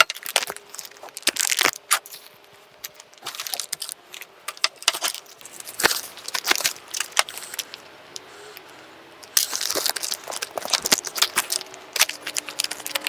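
Plastic parts packaging crinkling and rustling, with irregular small clicks and clinks of metal parts being handled, as new front fork parts are unpacked and looked over.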